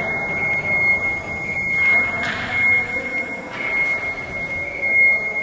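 A steady high-pitched machine whine over a rumble of running machinery, with a louder rush of noise about two seconds in.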